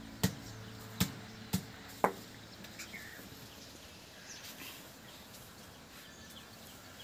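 Four sharp clicks about half a second apart in the first two seconds, then a faint outdoor background with a few short bird chirps.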